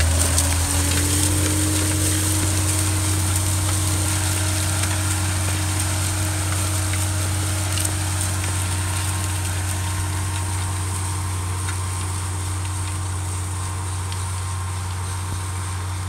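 Ford TW-35 tractor's turbo diesel engine running steadily under load, pulling a tandem disk harrow, over a steady hiss of the disk blades cutting through soil and cornstalks. The sound slowly fades as the tractor moves away.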